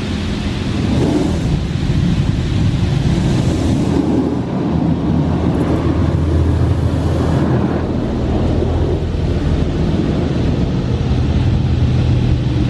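High-velocity touchless automatic car wash running, heard from inside the car's cabin: a steady low rumble with a rushing hiss that swells and eases.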